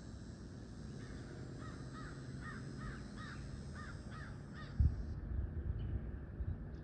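A bird calling in a quick run of about eight short notes, roughly two or three a second. Near the end comes a sudden low thump, followed by uneven low rumble.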